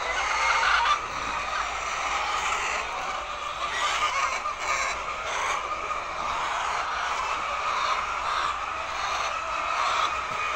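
Laying hens clucking and calling together, a steady din of many overlapping voices.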